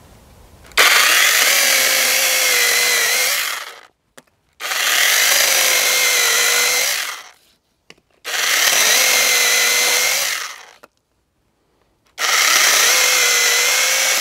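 Hychika CS18D 18-volt brushless cordless mini chainsaw with an 8-inch bar, run in four bursts of about three seconds each, cutting through light wood stock. Its motor whine sags a little under load in each cut, and it goes through with ease.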